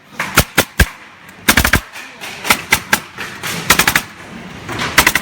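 Staple gun firing staples into material, sharp shots both singly and in quick runs of four or five.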